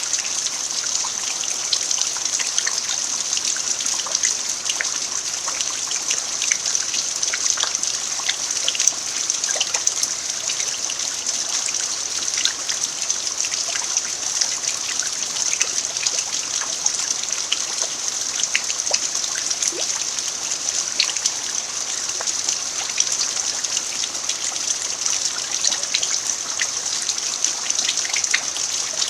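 Steady rain falling on a dirt yard: an even hiss with many small drop ticks scattered through it.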